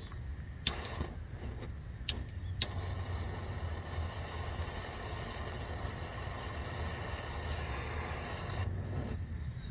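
Gas soldering torch flame burning with a steady low roar as it heats a copper pipe joint, mixed with wind rumble, and with a few sharp metallic clicks in the first three seconds.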